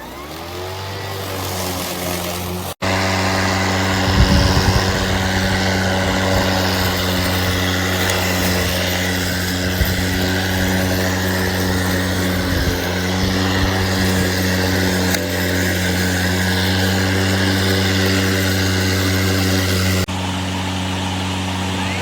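Battery-powered electric lawn mower started at the press of a button: the motor and blade spin up in a rising whine to a steady low hum. It drops out for an instant about three seconds in, then runs on louder and steady.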